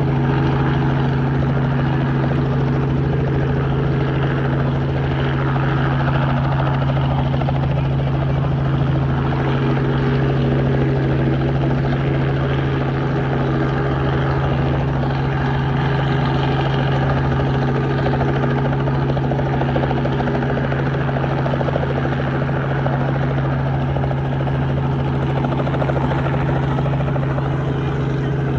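Helicopter running steadily: a loud, constant drone with a strong low hum that does not change in pitch or level.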